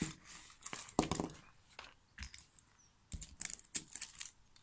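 A clear plastic bag crinkling and rustling as a pack of plastic-handled nail-art brushes is pulled out of it, with light clicks and rattles of the brushes, in irregular bursts with a short lull about halfway through.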